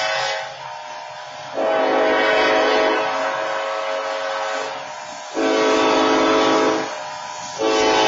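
Railroad horns sounding at a grade crossing: a loud multi-tone chord in long blasts, dropping away about half a second in, back at about a second and a half, and cutting back in twice more after shorter dips.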